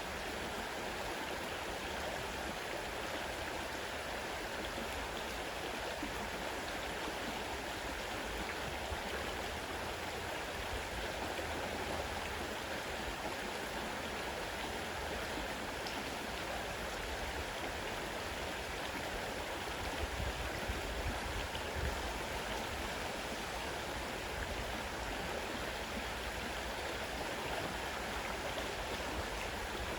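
Fast-running river water rushing steadily, with a few low rumbles about two-thirds of the way through.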